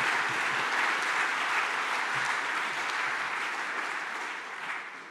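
Audience applauding steadily, then dying away over the last second or so.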